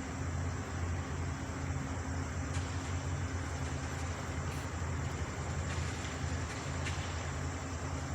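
Debris truck engine running steadily: a low, even hum under a constant hiss, with a few faint ticks.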